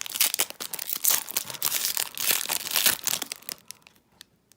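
Plastic wrapper of a trading-card pack crinkling as it is torn open and pulled away, a dense crackle that stops about three and a half seconds in.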